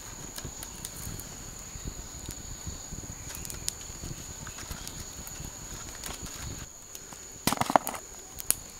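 Steady high-pitched drone of forest insects with small clicks and rustles of handling sticks and leaves; about seven and a half seconds in, a short loud burst of rustling.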